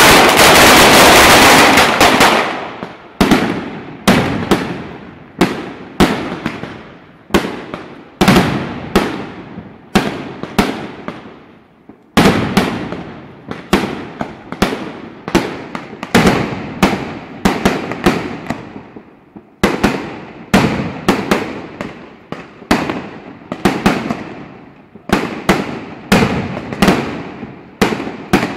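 Mascletà firecrackers: a dense, continuous rattle of explosions for about two seconds, then loud bangs going off one after another, about one or two a second, each fading off before the next. They burst on the ground and in the air.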